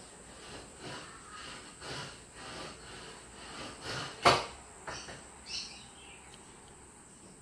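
Guinea pig chewing cucumber: soft, wet crunches about two a second, broken by one sharp click about four seconds in, then a few short high squeaks near the end.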